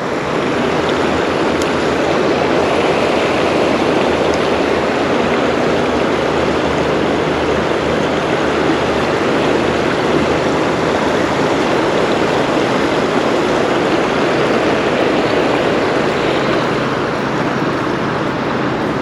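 Steady, loud rush of fast-flowing creek water.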